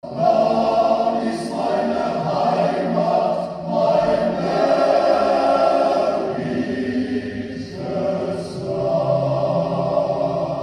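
A choir singing a slow song in long held phrases, with short breaks between phrases about 2, 3.5 and 7.5 seconds in. It starts abruptly out of silence.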